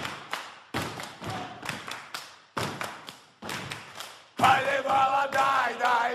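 A group of men stomping and clapping in an uneven beat. About four seconds in, the men break into a loud unison chant.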